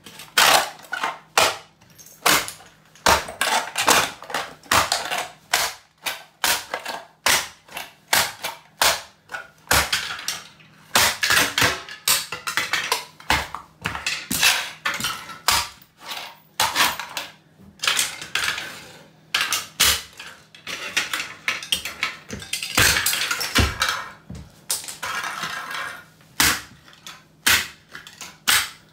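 Hard orange plastic toy cracking and crunching under stomping rubber Cofra steel-toe boots on a tile floor, with broken pieces clattering across the tiles. It is an irregular run of sharp cracks and thuds, about one or two a second, sometimes in quick clusters.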